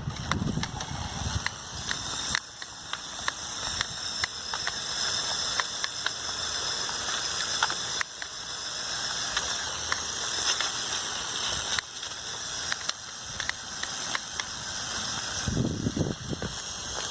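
Lego Technic RC truck with a hobby-style electric motor driving: a steady high hiss and whir from the motor and gear train, with many small irregular clicks and rattles from the plastic drivetrain and wheels.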